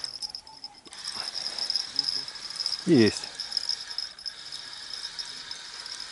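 Crickets chirping steadily in a high, pulsing trill. About three seconds in comes a single short, loud, falling voice-like cry.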